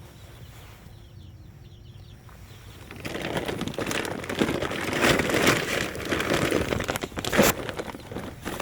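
Faint bird chirps, then, about three seconds in, loud irregular rustling and crackling with sharp snaps, like dry leaves, branches or bamboo being handled.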